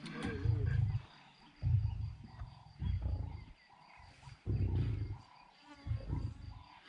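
Male lion roaring: a run of deep roars, one every second or so.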